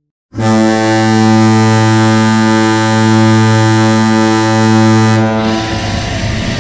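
Seattle Kraken goal horn: one long, low, steady horn blast of about five seconds, starting a moment in. Near the end the horn cuts off and the goal song, a rock track, starts.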